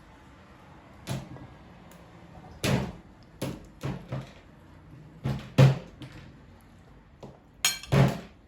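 A series of about ten sharp household knocks and thuds, irregularly spaced, like cupboard doors or objects being set down; the loudest come a little past halfway and near the end.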